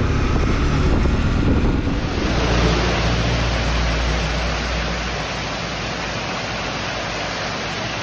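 Steady hiss of heavy rain that swells in about two seconds in, over the low rumble of a moving vehicle, which drops away about five seconds in.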